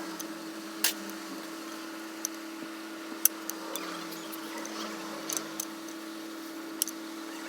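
Light, scattered metallic clicks and taps from hand tools and engine parts being handled during top-end reassembly of a Honda CRF250L engine, about eight in all, over a steady hum.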